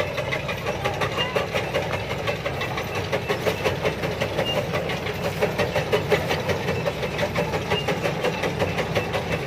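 Kubota DC-70 combine harvester's diesel engine running as the machine moves through the rice crop, with a rapid, even clatter from its machinery.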